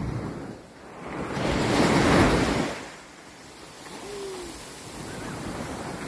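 Small waves washing up on a sandy shore, with one wave surging in and breaking about two seconds in, the loudest moment. Wind rumbles on the microphone underneath.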